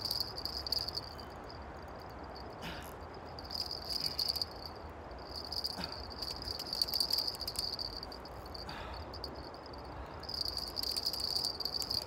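Crickets trilling in a steady high chirr that comes in stretches of a few seconds with short breaks between them, with a few soft knocks underneath.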